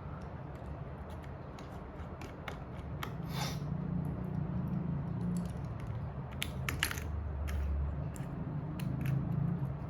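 Small repair tools handling a phone's parts: scattered sharp clicks, a brief scrape about three seconds in and a quick run of clicks near the middle. A steady low hum sits underneath.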